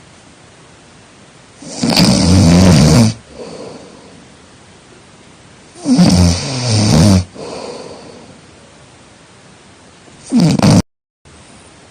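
A person snoring loudly: three snores about four seconds apart, the last one short and cut off suddenly.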